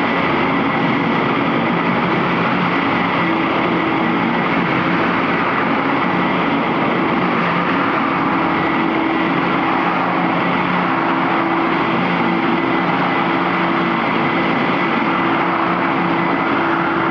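DGF500 floor grinder running with PCD diamond teeth, grinding bitumen adhesive off concrete: a loud, steady grinding noise over a constant motor hum.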